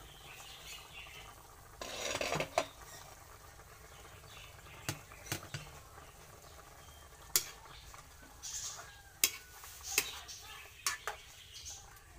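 A metal utensil clinks and scrapes against an aluminium wok of chicken simmering in tomato sauce. There is a longer rattling burst about two seconds in, then sharp single clinks scattered through the rest.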